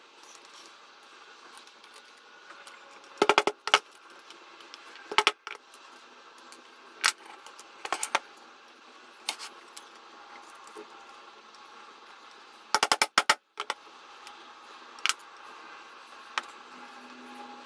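Sharp metallic clicks and clinks as copper rivets and a metal riveting press are handled, including two quick rattling clusters of clicks, the first about three seconds in and the second about thirteen seconds in.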